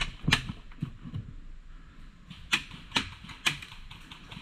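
Airsoft gunfire: a few sharp single clacks, one shortly after the start and three more about half a second apart later on.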